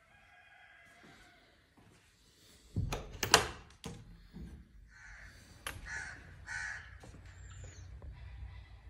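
A door latch clicking and the door knocking as it opens, the loudest moment, about three seconds in. Then birds give three short, harsh calls.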